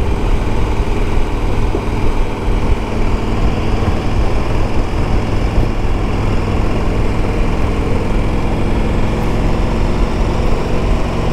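KTM 1290 Super Adventure S V-twin engine running steadily under light load in fourth gear at about 50 km/h, heard from the rider's seat along with the rush of riding.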